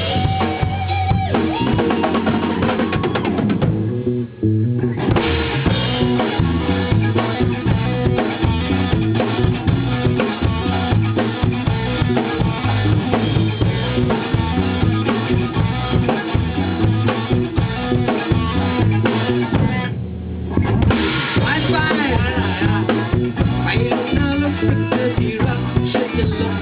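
Band playing an instrumental passage of a Thai pop-rock song, with a drum kit keeping a steady beat. The music thins out briefly about four seconds in and again near twenty seconds.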